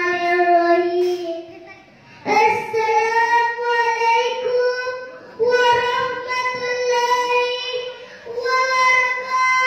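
A young girl singing into a microphone in long, drawn-out notes, in four phrases with short breaks between them, the first phrase lower in pitch than the rest.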